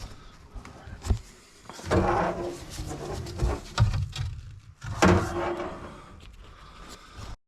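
Knocks and clatter of objects being handled, loudest in two bursts about two and five seconds in, ending in an abrupt cut to silence.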